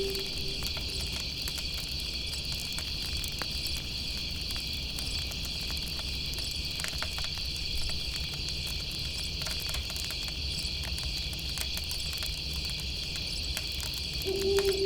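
Steady night chorus of insects chirring, with scattered small crackles from a campfire and a low steady rumble beneath.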